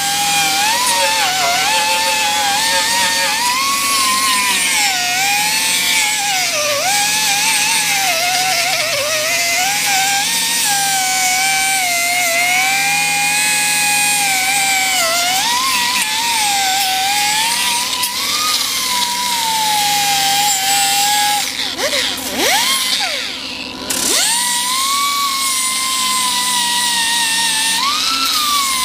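Blackridge pneumatic cut-off tool whining as its disc cuts sheet steel, the pitch wavering up and down as the wheel loads and unloads, over a steady hiss. About three quarters of the way through it twice drops sharply in speed and spins back up.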